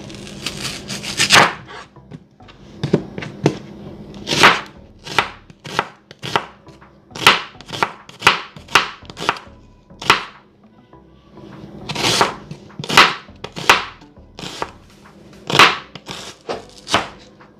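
Chef's knife slicing through an onion on a plastic cutting board, each cut ending in a sharp knock of the blade on the board. The cuts come at an uneven pace of about one to two a second, with a short pause about ten seconds in.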